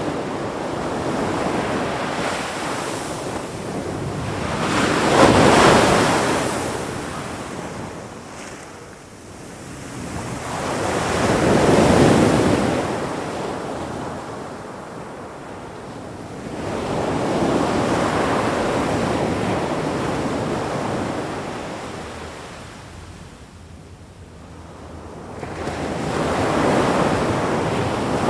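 Ocean waves breaking and washing up on shore, each surge swelling and fading roughly every six seconds; four swells in all.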